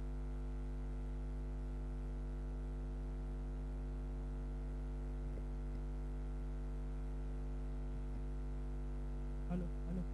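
Steady electrical mains hum with a buzzy series of overtones, carried in the live-stream sound feed while the commentary microphone is idle. Two faint short blips come near the end.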